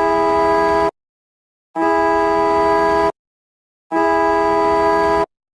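Car horn honking in three long, steady blasts, each over a second long with short silent gaps between.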